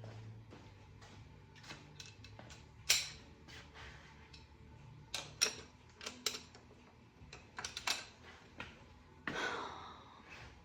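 Metal hand tools being handled: sockets, a ratchet and extensions clinking and clicking against each other at uneven intervals, the sharpest clink about 3 s in and a longer clattering rattle near the end. A faint steady low hum runs underneath.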